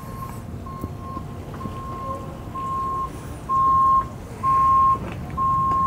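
Vehicle reversing alarm beeping a single steady high tone about once a second, growing louder about halfway through.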